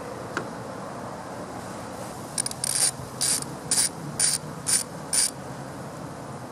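Socket ratchet wrench loosening the nut on a car battery's negative terminal clamp. The pawl clicks in six short bursts about half a second apart, one for each back-swing of the handle.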